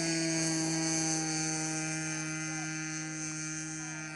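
Twin-cylinder model airplane engine running at steady high throttle on the takeoff roll, holding an even pitch and fading slightly as the plane moves away.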